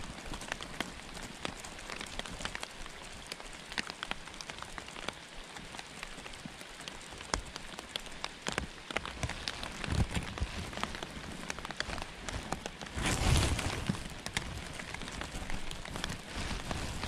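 Steady rain falling, with many close, sharp raindrop ticks over an even hiss. A louder low rush comes about thirteen seconds in.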